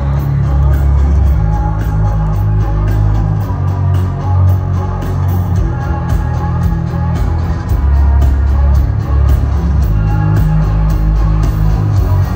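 Live rock band playing loudly, with electric guitar over a heavy bass line and a steady drum beat, without vocals.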